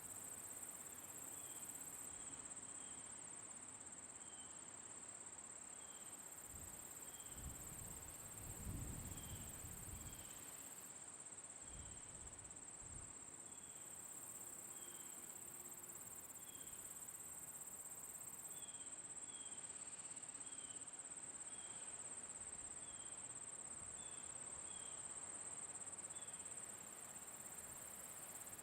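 Insects singing in a steady, unbroken high-pitched trill, with short high chirps scattered through it. A brief low rumble comes and goes about a third of the way in.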